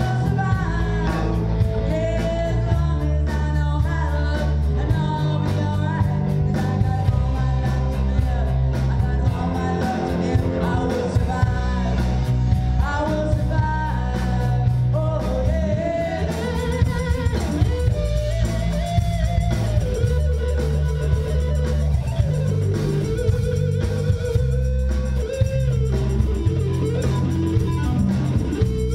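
Live rock band playing through a bar PA: a woman singing over electric guitar, bass guitar and drum kit. About halfway through, the singing gives way to an instrumental passage led by the guitar.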